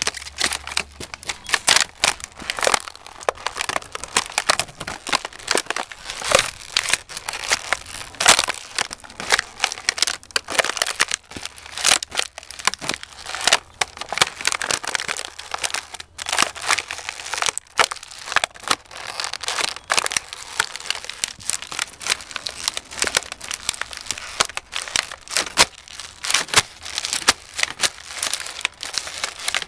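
Justin Stampede leather cowboy boots stomping on and grinding an empty clear plastic pastry container against concrete. The thin brittle plastic crunches and crackles continuously, with many sharp cracks as it splits and flattens.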